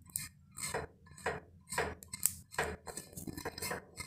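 A silicone pastry brush being swept back and forth over a hot, oiled tava (griddle), making short swishing and scraping strokes about twice a second as the oil is spread.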